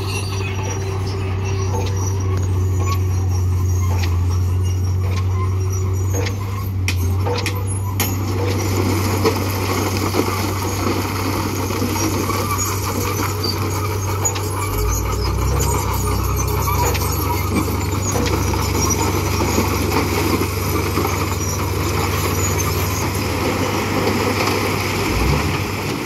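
Diesel dump truck engine running steadily as the loaded truck reverses over gravel, with a few sharp clicks about six to eight seconds in. Its note deepens about halfway through, and near the end the raised bed tips out its load of rock.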